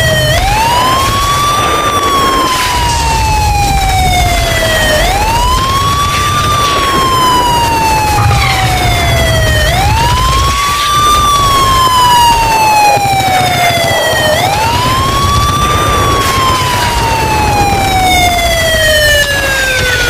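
Emergency alarm siren: a quick rise in pitch followed by a long, slow falling glide, repeating about every four and a half seconds, over a low rumbling noise.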